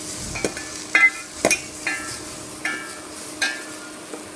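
A spoon stirring spices and thuthuvalai leaves frying in sesame oil, knocking against the pan about six times with short ringing clinks, over a light sizzle.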